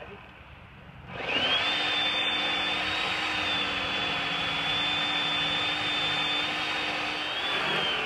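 Chainsaw opened up to full throttle about a second in and running steadily with a high whine, cutting into the ash trunk; the pitch drops a little near the end as the chain takes load.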